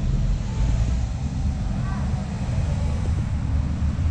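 Street ambience: a steady low rumble with faint voices of passers-by, briefly clearer about two seconds in.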